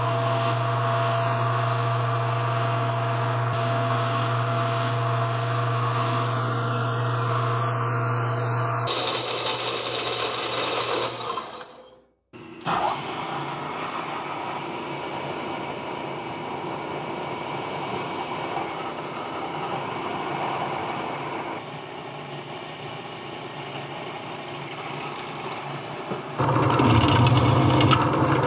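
Metal lathe motor running steadily with a low hum while a carbide insert turns a metal nozzle part. After a brief break about 12 seconds in, a milling machine spindle runs while small cross holes are drilled into the part, with a thin high whine for a few seconds. Near the end a louder low machine hum sets in.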